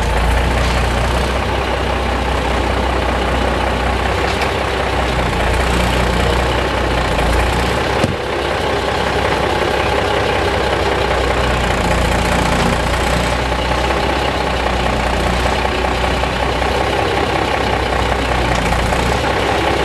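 Diesel engine of a cab-over semi tractor running steadily at a low, even speed, with a single sharp click about eight seconds in.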